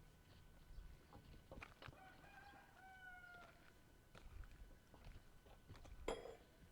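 A rooster crowing faintly, one drawn-out crow in two parts about two seconds in, the last part falling slightly. A sharp knock with a short metallic ring near the end, with faint scattered clicks around it.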